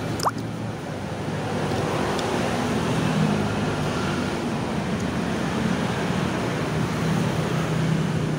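Steady background noise with a low hum throughout, and a short rising squeak about a third of a second in.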